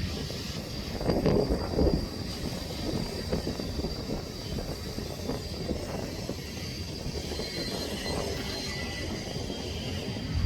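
Union Pacific freight train rolling past, a steady rumble of cars on the rails with a faint, steady high-pitched tone above it.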